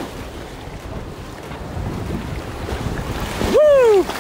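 Whitewater rushing steadily around an inflatable kayak running a river rapid. Near the end, a loud whooping "Woo!" rises and falls in pitch.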